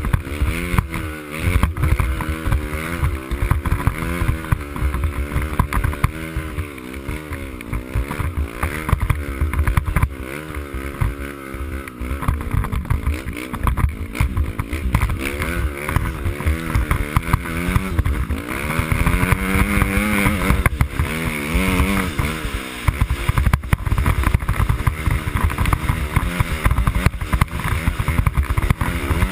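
Dirt bike engine running under load as it rides through snow, its pitch repeatedly rising and falling with the throttle, climbing highest about two-thirds of the way through.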